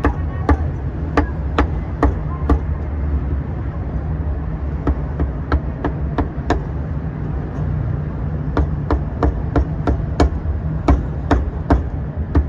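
Meat cleaver chopping crispy pork on a thick wooden chopping block: sharp chops about two a second, in three runs with short pauses between them, over a steady low rumble.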